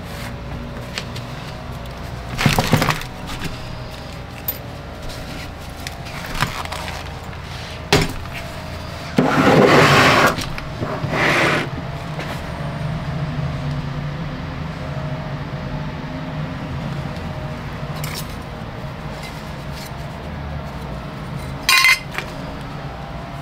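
Hard objects clinking and clattering in scattered knocks. A longer rattling burst comes about nine to ten and a half seconds in and a short loud clatter near the end, over a steady low hum.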